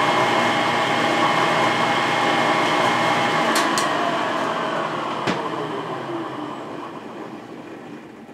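Milling machine motor and spindle running steadily, then switched off with a click about five seconds in and winding down, its pitch falling and the sound fading.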